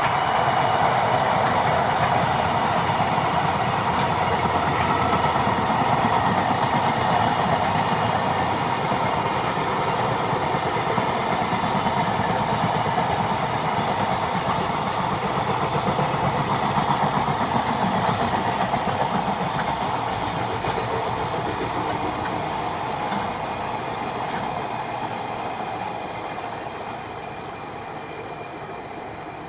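Freight train running past close by, its wagons clattering steadily over the rails, the sound fading away over the last several seconds.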